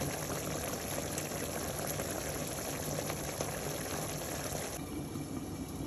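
Chicken liver adobo simmering in a pot, the sauce bubbling steadily as it reduces. The higher part of the hiss cuts off abruptly about five seconds in.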